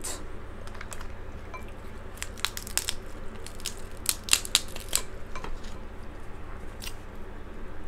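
Crab legs being cracked and snapped apart by hand: a run of short, sharp shell cracks, thickest in the middle and loudest a little past halfway.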